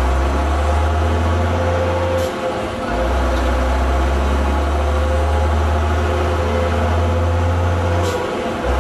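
Leyland Olympian double-decker bus engine pulling steadily, broken twice (about two seconds in and again near the end) by a gear change: the engine note drops for a moment and the gearbox gives a short, sharp air sneeze.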